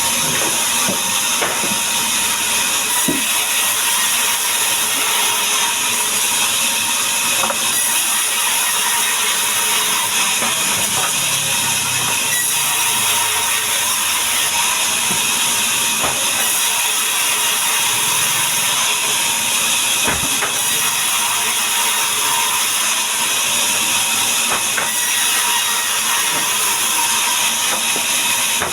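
Power saw running steadily and cutting through timber, a loud even hiss and whine with a held tone and scattered clicks.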